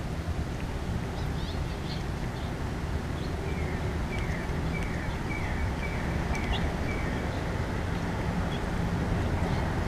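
Outdoor backyard ambience: a steady low rumble, with a small bird calling a run of about six short, falling notes, about two a second, a few seconds in.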